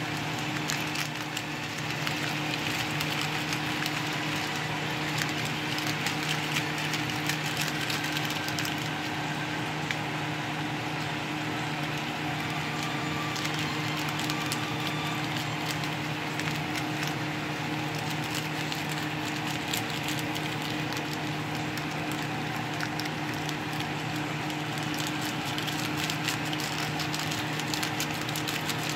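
Cabbage and noodles frying in a hot pan, a dense crackling sizzle throughout, over a steady low hum.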